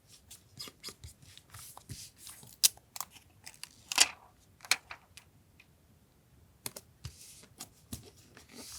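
Close-up paper and stationery handling while making a journal collage: a string of sharp clicks and taps mixed with short paper rustles. The loudest is a brief rustle about four seconds in, followed by a quiet second or so before more clicks.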